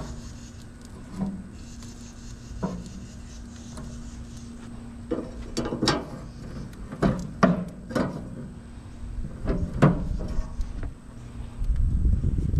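Scattered knocks and clatters of baby back rib slabs and a metal rib rack being handled on a charcoal grill's grate as the ribs are moved into the indirect zone, with a low rumble near the end.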